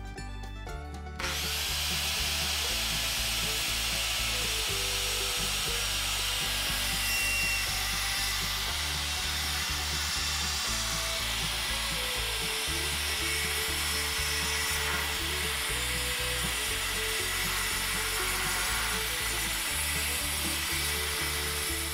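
Handheld circular saw running and ripping a cedar board lengthwise, a steady cutting noise that starts about a second in and holds evenly to the end, with background music underneath.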